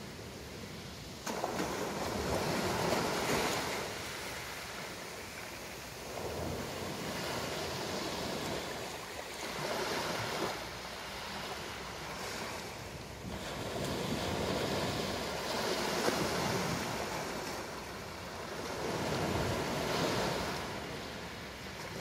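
Small waves breaking and washing up a pebbly beach, the surf swelling and fading every four to five seconds, with a sudden rise as a wave breaks about a second in.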